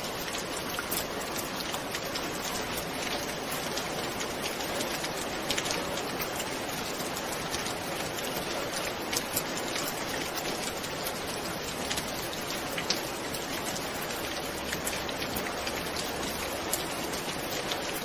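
Steady rain, with many single drops ticking sharply over the even hiss.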